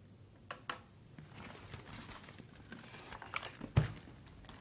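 Light handling noises of a plastic ice-block bottle and a soft cooler: a couple of small clicks, a soft rustling, then a sharper knock near the end.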